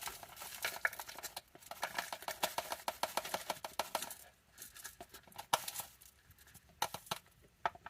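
Light rapid clicking and tapping of small plastic tubs and lids being handled, dense for about four seconds, then a few scattered clicks.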